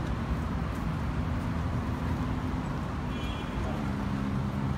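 City street traffic noise: a steady low engine hum from vehicles, with a brief faint high tone about three seconds in.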